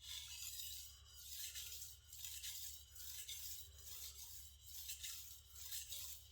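Shigeki Tanaka gyuto's steel blade being stroked along a wet whetstone, a scraping hiss about once a second, laying down a final series of edge-refining strokes on one side.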